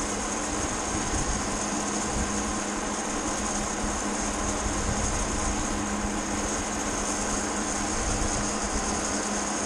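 Wind rushing over a helmet or chest-mounted action camera's microphone and the scrape of skis or a board sliding on packed, groomed snow during a steady downhill run, a constant rushing noise with a low hum underneath.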